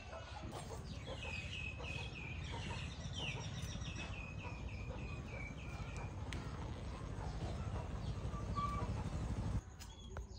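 Bird calls: runs of short, repeated calls for the first several seconds, with one more near the end, over a steady low rumble that cuts off suddenly near the end.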